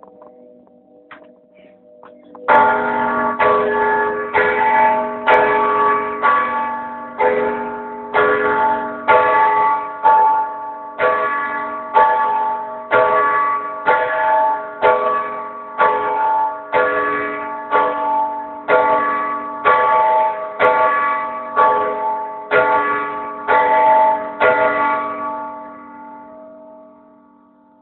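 A large church bell struck over and over by its clapper, which is worked by a hand-pulled rope. After a short lull with a fading ring, the strokes begin a couple of seconds in at about three every two seconds. They stop near the end and the bell rings away.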